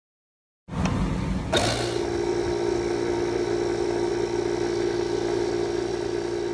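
AIRBANK portable tire inflator's small compressor running steadily, pumping air into a car tire through the hose on the valve stem. It starts under a second in, with a sharp click just after, then holds a steady mechanical hum.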